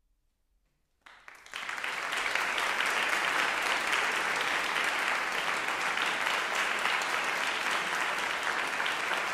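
Audience applause breaking out about a second in after a silence, swelling quickly, then carrying on steadily as many hands clap together.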